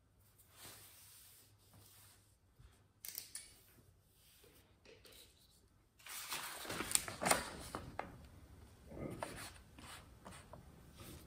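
Faint rubbing and a few light knocks of hands on a small wooden box and its thin wooden dividers. From about six seconds in, a sheet of paper rustles, louder, as it is handled.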